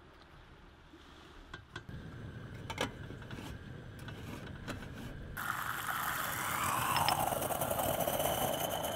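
Aluminium stovetop moka pot being handled and screwed together, with a few light clicks and scrapes. Then about five seconds in, a sudden hiss that falls in pitch sets in and carries on to the end: the pot sputtering and gurgling as the brewed coffee rises at the end of brewing.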